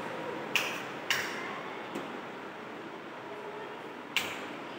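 Sharp clicks of modular wall switches being pressed on a domestic-wiring trainer panel: two about half a second apart near the start, a faint one, then another near the end.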